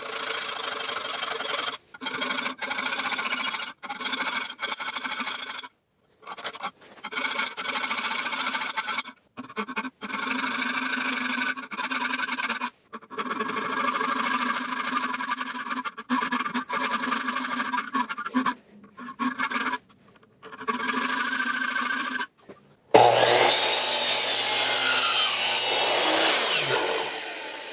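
5160 high-carbon steel knife blank being ground and filed to shape, heard in short clips that cut off abruptly, with a few steady pitched tones over a rasping noise. About 23 seconds in a louder, brighter machine sound with a low hum takes over and fades near the end.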